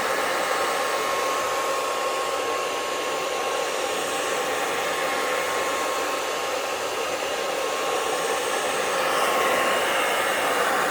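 Hand-held hair dryer blowing on its hot setting, a steady airy whoosh with a thin whine, warming a self-adhesive leather repair patch to set its adhesive; it is switched off abruptly at the very end.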